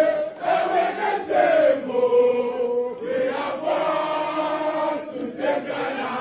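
A group of people chanting a song together in unison, with long held notes.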